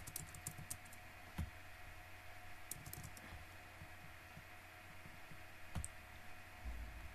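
Faint clicks of a computer keyboard and mouse: a quick run of clicks at the start, a single click about a second and a half in, another short run around three seconds, and one more near six seconds, over a steady faint hum.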